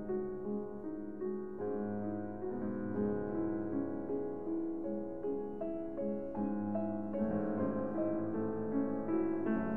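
Background instrumental piano music, a melody moving from note to note every half second or so.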